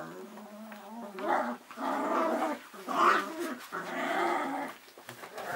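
Cavalier King Charles Spaniel puppies play-growling while they tug at a toy, in several bouts that grow louder from about a second in.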